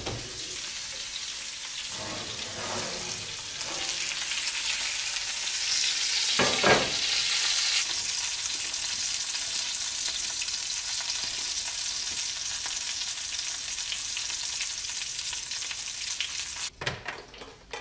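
Fat and juices sizzling and crackling in a hot cast-iron skillet holding a whole chicken fresh from a very hot oven, a steady hiss that swells for a few seconds; a short knock about six and a half seconds in is the loudest moment.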